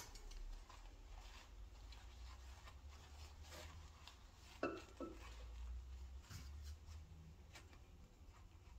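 Faint handling at a workbench: a shop towel rubbed against an aluminium cylinder head, with scattered light ticks and a brief scrape about halfway through, over a low steady hum.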